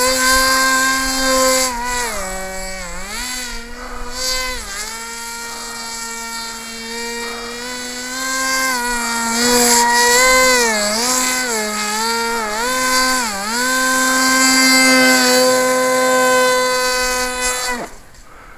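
Model airboat's propeller motor whining, its pitch dipping and rising again and again as the throttle is worked, then cutting off suddenly near the end as the boat tips over in the snow.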